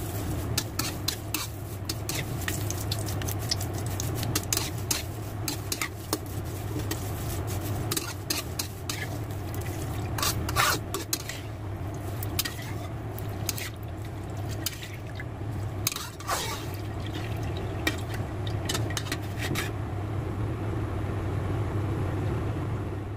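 Holy basil leaves deep-frying in hot oil in a wok: a steady sizzle with frequent sharp crackles and pops, and metal utensils scraping and clinking against the wok as the leaves are stirred and scooped out. A steady low hum runs underneath.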